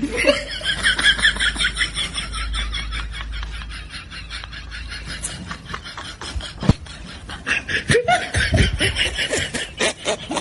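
Sustained laughter, a quick string of laughing pulses that eases off in the middle and picks up again about eight seconds in.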